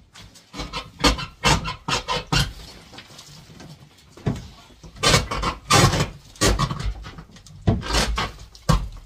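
A hammer scraping and knocking at rotten wooden wall boards, prying at a nail that will not come out, in irregular rasping strokes.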